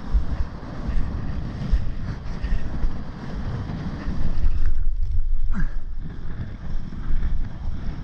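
Strong gusting wind buffeting the camera microphone in 30–40 knot conditions, a heavy low rumble that surges and eases, with breaking surf underneath. About five seconds in, the hiss drops out briefly while the rumble gets louder.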